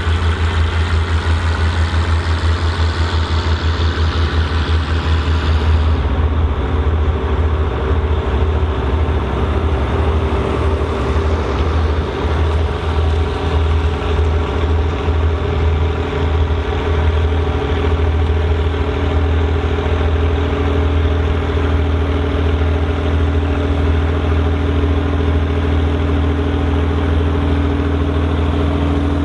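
Volvo BM 2654 tractor's diesel engine running steadily at an even pitch, loud, with a strong low hum, as it pulls a plough.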